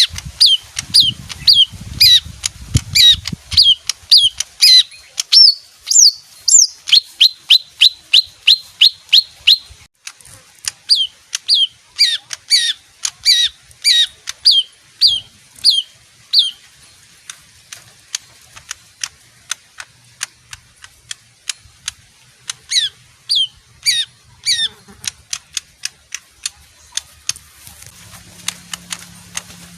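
Small green songbird (Thai 'nok khiao') calling in long runs of sharp, high, quickly falling chirps, about two or three a second. The calls break off after about sixteen seconds, leaving faint clicks, and start again for a short run later.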